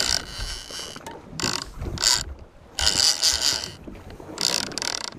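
Big-game conventional fishing reel being cranked in several quick spurts with short pauses between them, winding in line on a hooked blue shark.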